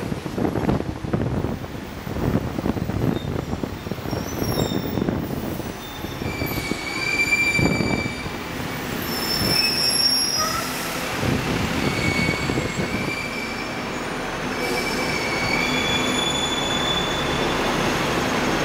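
Hong Kong double-deck electric tram running along its street track, heard on board: a rumbling clatter of steel wheels on rail, with thin high wheel squeals coming and going from about four seconds in.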